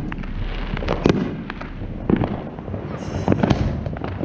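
Consumer fireworks going off on all sides: a constant, irregular crackle of firecracker pops, with louder bangs about a second in, about two seconds in, and twice more around three and a half seconds in.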